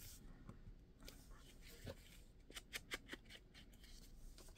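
Faint handling of paper and envelopes at a craft table, with a quick run of light clicks about two and a half seconds in and one sharp click at the very end.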